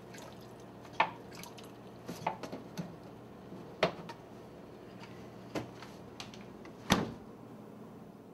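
Kitchen handling sounds: a thin trickle of water poured from a plastic gallon jug into a cereal bowl, then about half a dozen sharp clinks and knocks as the spoon, bowl and jug are handled, the loudest near the end.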